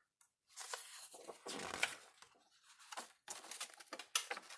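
A picture book's paper page being turned by hand, rustling and sliding in several short bursts that begin about half a second in.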